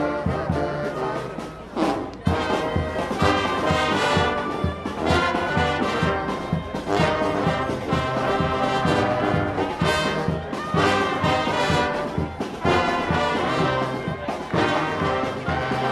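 Street brass band playing an up-tempo tune: trombones and trumpets over drums keeping a steady beat. There is a brief drop about two seconds in before the full band comes back in.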